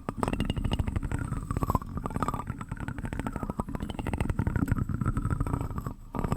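Plastic spoon scraped and rubbed in quick repeated strokes, a dense run of fine scratchy clicks, with a brief pause about six seconds in.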